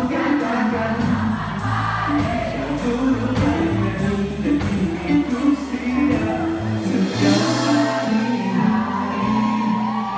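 Live pop band music with singing over a steady drum beat and sustained bass notes.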